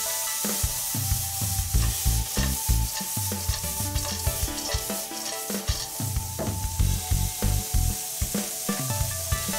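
Snake beans, baby anchovies and roasted broad beans stir-fried in a wok: sizzling in hot oil, with a spatula scraping and stirring through them in quick, irregular strokes.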